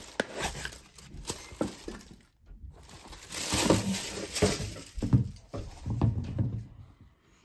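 New running shoes handled close to the microphone: rustling of the uppers and soft knocks. A louder stretch of rustling starts about three seconds in.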